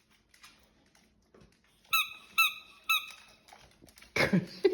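Squeaky dog toy squeezed three times in quick succession, about half a second apart, each a short high squeak.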